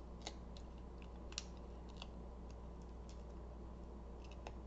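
A few faint, scattered clicks and taps of cardstock being handled at a craft table, over a low steady hum.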